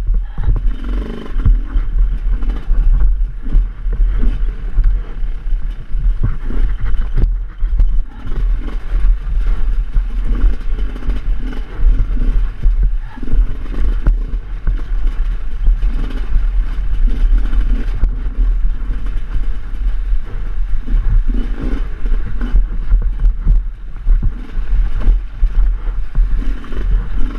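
Enduro dirt bike engine running at low revs, the throttle rising and falling again and again as the bike picks its way over rocks, with scattered knocks from the bike striking stones and a heavy low rumble on the helmet camera.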